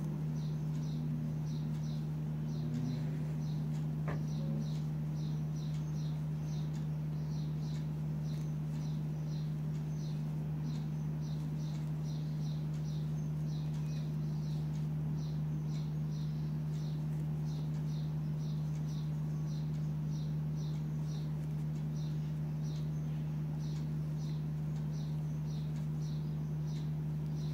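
A steady low hum, with a faint high chirp repeating evenly about twice a second.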